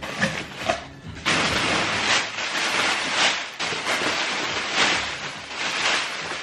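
Rustling and tearing of packaging in uneven surges as a parcel of trainers is cut open and unpacked.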